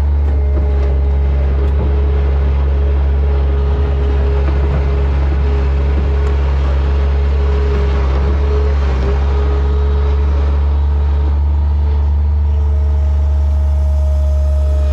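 Farm machine engine running steadily at a constant speed: a heavy low rumble with a steady whine over it. A second, higher whine joins near the end.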